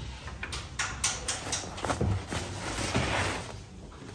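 Bakery work noise: a series of light knocks and clatter from bread and tools being handled on the counter, then a brief swish about three seconds in.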